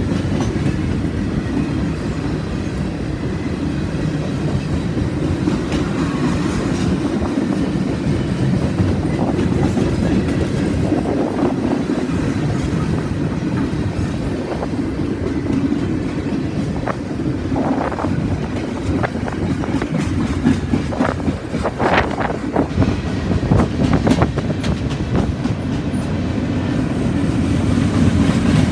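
Freight train of loaded bulkhead flatcars rolling past close by: a steady rumble of wheels on rail with clickety-clack over the joints. In the second half there is a run of sharper knocks and clanks.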